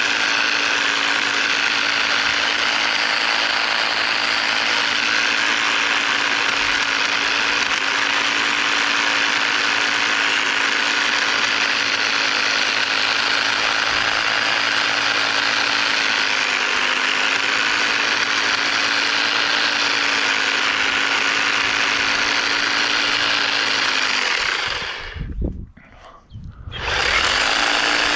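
Battery-powered EGO pole hedge trimmer running steadily while trimming bushes, its reciprocating blades chattering over a steady motor hum. It stops about 24 seconds in, a few low thumps follow, and then it runs again briefly near the end.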